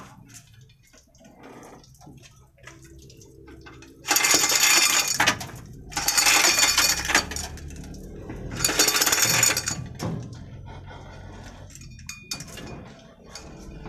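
Steel chain of a manual chain hoist rattling and clinking in three bursts of a second or so each, starting about four seconds in and ending around ten seconds in, as the hoist is worked to shift the hanging truck engine.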